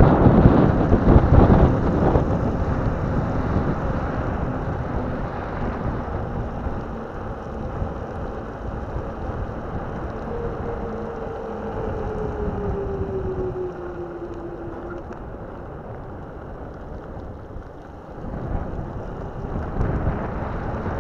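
Off-road electric skateboard rolling on wet asphalt: its knobbly pneumatic tyres hiss on the road while wind buffets the microphone, most strongly in the first couple of seconds. Around the middle a faint whine drops slowly in pitch.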